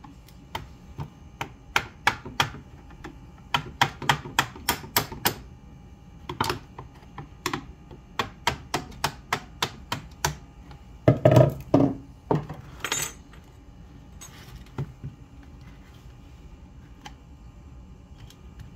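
Clicks and knocks of screwdrivers and the jigsaw's housing being handled on a workbench while the jigsaw is taken apart. They come in quick runs of sharp clicks, with a louder clatter about eleven seconds in, and die away after about fifteen seconds.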